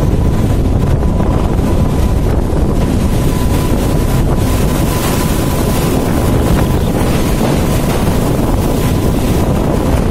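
Wind buffeting the microphone over a loud, steady low rumble, with a thin steady tone held throughout.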